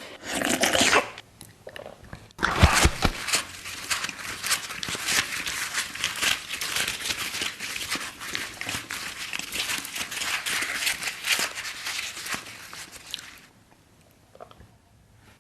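Close-miked crunching and crackling: a short burst in the first second, then dense, rapid crackles for about eleven seconds that stop abruptly.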